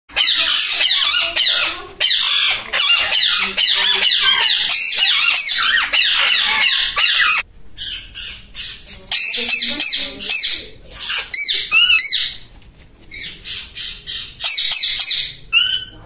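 A flock of parakeets calling with shrill, overlapping screeches. The calls are dense and continuous for the first seven seconds or so, then thin out to scattered bursts of calls with short gaps between them.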